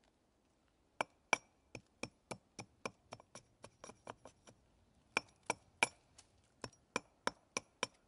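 A hatchet chopping into a log in quick, light strokes, about three a second, with a short pause about halfway. Each stroke gives a sharp knock with a short ring.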